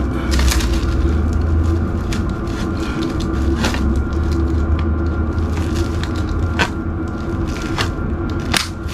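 Handheld electric cutting tool running with a steady low buzz as its reciprocating blade cuts through thick EVA foam floor tiles, with scattered clicks and scrapes of the blade in the foam. The motor stops briefly about two seconds in and again near seven seconds.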